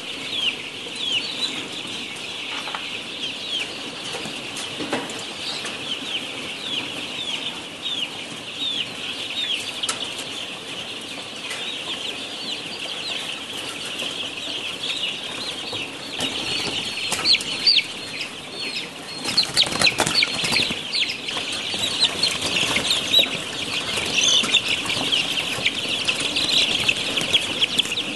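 A large flock of caged pullets (young laying hens) calling all together: a dense, continuous chorus of short, high, falling peeps and chirps. A few sharp knocks or rattles come about two-thirds of the way through.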